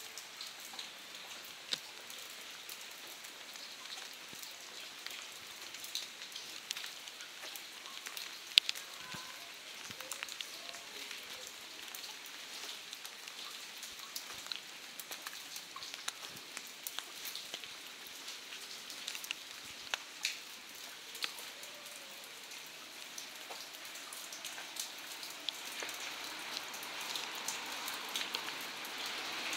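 Steady rain falling, with many separate drops ticking sharply close by over a soft hiss; it grows a little heavier near the end.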